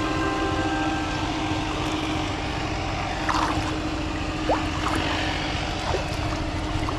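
Water sloshing and splashing around legs wading through shallow pond water, over a steady hum.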